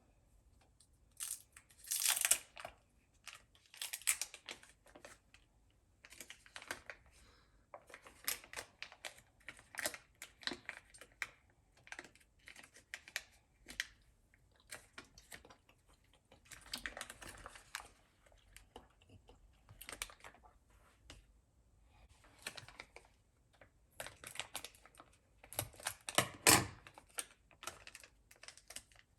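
Handling noises: irregular small clicks, taps and crinkles, with louder clatters about two seconds in and again near the end.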